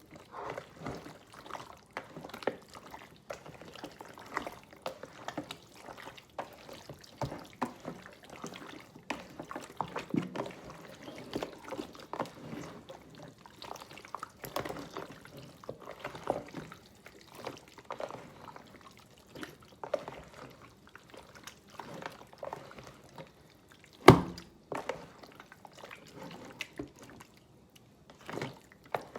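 Raw chicken pieces being mixed with wet jerk sauce in a bowl: irregular wet, sticky sounds, with one louder knock near the end.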